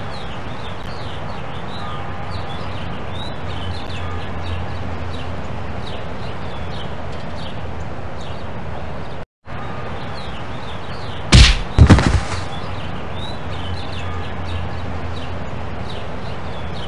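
Outdoor ambience track of birds chirping over a steady low hum. It cuts out for an instant about nine seconds in, and a couple of seconds later two loud whacks land about half a second apart, cartoon hit sound effects.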